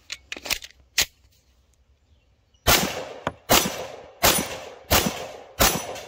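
Shadow Systems DR920P 9mm pistol, with its integrated compensator, firing five shots at a steady pace of about one every 0.7 seconds, each report trailing off in an echo. A few lighter sharp ticks come in the first second.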